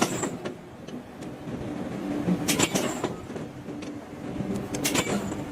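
Forging machinery at work on hot iron: a steady machine hum with sharp metallic clanks that ring high, coming in short clusters about every two and a half seconds.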